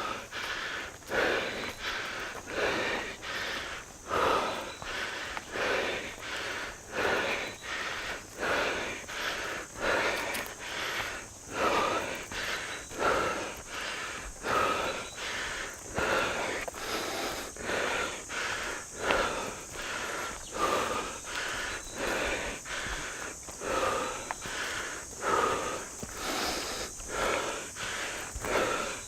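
A hiker's heavy, rhythmic panting, about one and a half breaths a second, from the exertion of a steep uphill climb.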